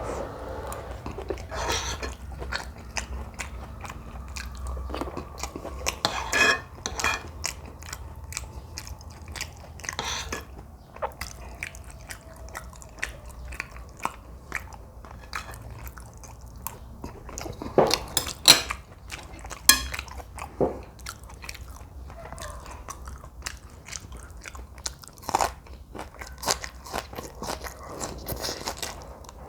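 Close-miked eating: slurping noodles and chewing, with many small crunching bites and wet mouth clicks, a few louder ones partway through.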